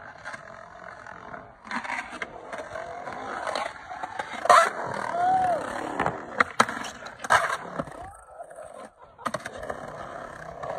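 Skateboard wheels rolling on concrete, with a series of sharp clacks as the board hits the ground.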